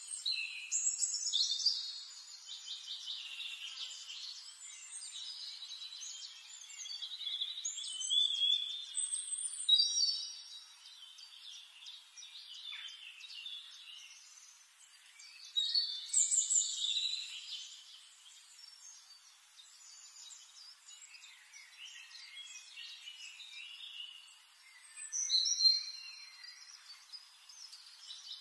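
Birdsong: several birds chirping and trilling in overlapping high phrases, louder bouts of song coming every few seconds over a soft background hiss.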